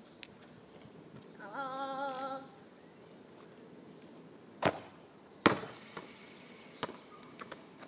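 A football being kicked: two sharp thuds under a second apart about two-thirds of the way through, the second the louder. Earlier, about one and a half seconds in, a person gives a short drawn-out wavering shout.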